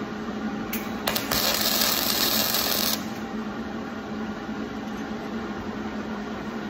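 Welding arc on thin sheet metal: a couple of brief crackles as the arc strikes about a second in, then a loud, even crackle for about two seconds, a short tack weld, that cuts off suddenly. A steady low hum runs underneath.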